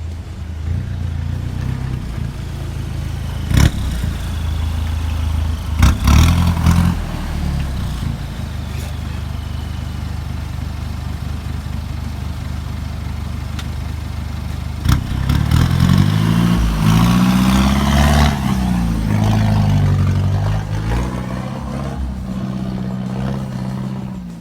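Suzuki Jimny engine running at low revs over off-road terrain, with sharp knocks and clatter a few seconds in, then revving up and down repeatedly about two-thirds of the way through.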